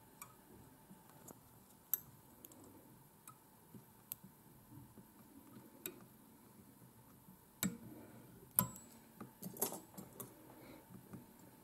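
Faint scattered clicks and light metallic ticks of a wire whip-finish tool as it turns thread around the hook to tie the finishing knot. A few louder clicks come close together past the middle.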